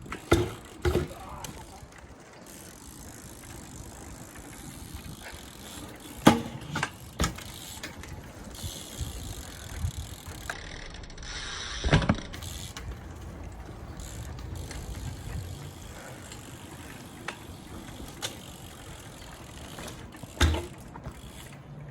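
BMX bike being ridden: tyres rolling with mechanical clicking, broken by several sharp knocks from landings and tricks, the biggest about halfway.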